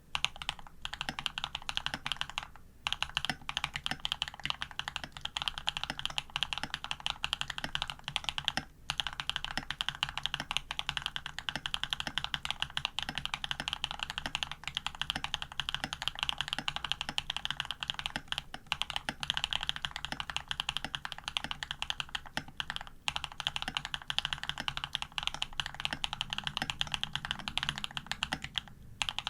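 Continuous typing on a custom AR87 tenkeyless mechanical keyboard with lubed Jade cream switches, PBT keycaps, an aluminium plate and Cherry stabilizers, broken by a few brief pauses.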